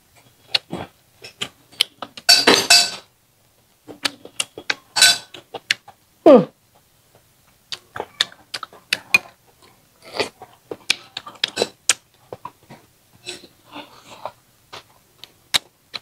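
Close-up eating sounds: wooden chopsticks clicking against a rice bowl and mouth noises of chewing, many short irregular clicks. A loud breathy burst about two seconds in is the loudest sound, with a smaller one around five seconds, and a short sound falling in pitch a little after six seconds.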